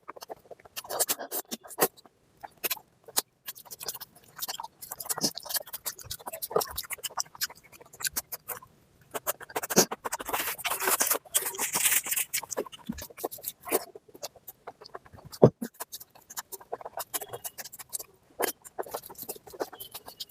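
Close-up eating sounds of mutton fat curry with rice: wet chewing and lip smacks, with irregular flurries of short clicks and crackles.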